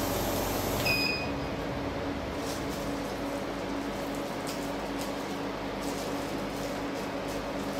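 Nubway NBW CL218 treatment machine running with a steady mechanical hum. About a second in there is a short electronic beep and a high hiss cuts off. Faint light clicks follow as the treatment handpiece is handled.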